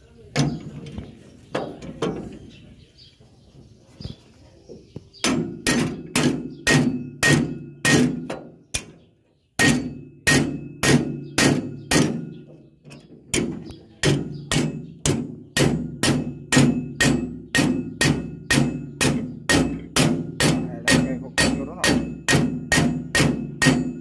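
Steel hammer striking a steel punch held against a serrated knife section on a rice harvester's cutter bar, with a ringing clang at each blow. Two blows come near the start, then a steady run of about two blows a second from about five seconds in, broken by a short pause near nine seconds.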